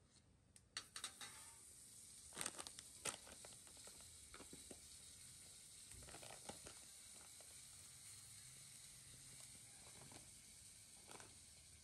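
Faint sizzling from a wok on a portable gas stove, with scattered sharp clicks and ticks, the loudest a cluster about two and a half to three seconds in.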